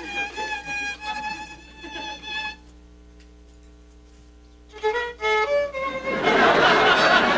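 A solo violin played close by, a lively tune of short bowed notes. It stops for about two seconds partway through, then comes back with a rising run of notes. Near the end a louder rush of noise swells up under the violin.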